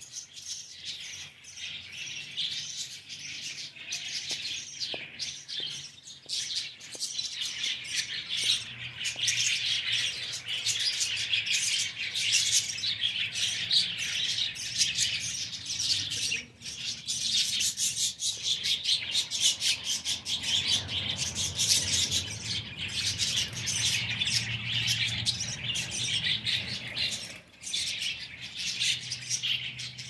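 A flock of small caged aviary birds chirping together, a dense, continuous high chatter that grows busier after the first several seconds.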